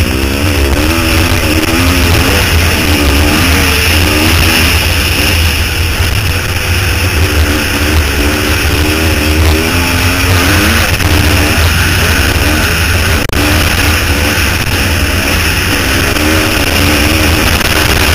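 Dirt bike engine heard from the rider's helmet camera, revving up and dropping back again and again as it is ridden hard round a motocross track, over a heavy low rumble. One sharp knock about 13 seconds in.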